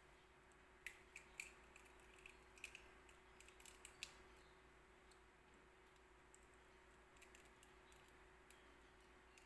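Faint clicks and small cracks of an eggshell being pried apart by hand, bunched from about one to four seconds in, then a few soft ticks, over a faint steady hum.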